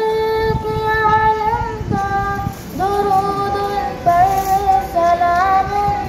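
A schoolgirl singing an Urdu naat solo into a microphone, unaccompanied, in long held notes that step up and down in pitch, with a short breath about two and a half seconds in.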